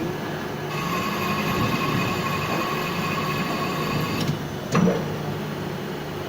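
C6246-WMT CNC lathe running with steady machine noise. A whine of several steady pitches joins in about a second in and cuts off suddenly about three seconds later, then there is a single sharp clank.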